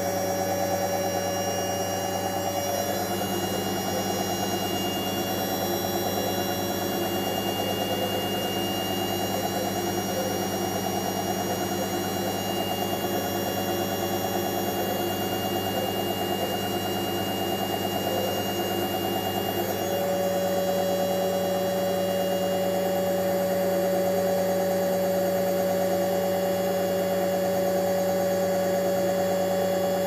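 Whirlpool FL 5065 front-loading washing machine in its 600 rpm spin: the drum and motor run at a constant speed with a steady hum and a faint high whine, getting a little louder about two-thirds of the way through.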